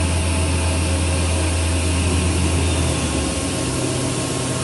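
A Doosan DB25CM CNC horizontal boring mill running, with a steady machine hum under an even hiss. A little after three seconds in, the lowest tone drops out and a slightly higher hum carries on.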